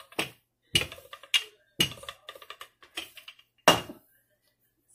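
Wooden rolling pin knocking and rattling on the countertop while rolling out a sheet of dough: a string of irregular knocks, the loudest near the end as the pin is set down.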